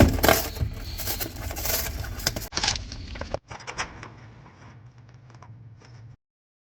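Jangling, clicks and scrapes of hands working around a vending machine, broken by two edit cuts, then cut off to dead silence about six seconds in.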